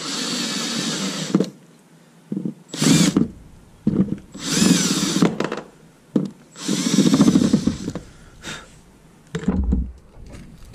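Cordless drill with a step bit cutting into a plastic boat hull in four bursts of a second or two each, the motor whine rising and falling with the trigger, then a couple of short blips near the end. It is enlarging a misplaced outlet hole for a bilge pump fitting.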